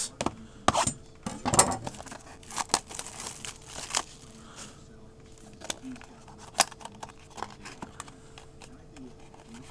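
Crinkling and tearing of a trading-card pack wrapper as it is opened, with scattered sharp clicks and rustles as the cards are handled. The loudest snaps come in the first two seconds.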